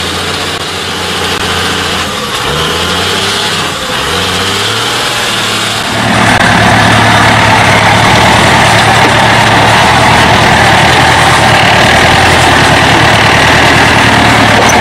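An off-road trial vehicle's engine revving, its pitch rising and falling as it works through mud. About six seconds in, the sound cuts to a louder truck engine running steadily under heavy load as the truck crawls over steep, rough ground.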